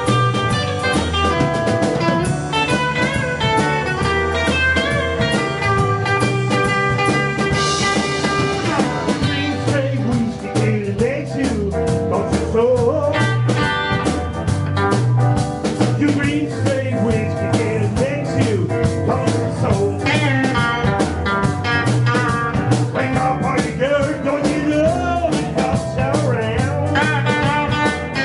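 Live electric blues band playing: electric guitars, electric bass and a drum kit over a steady beat.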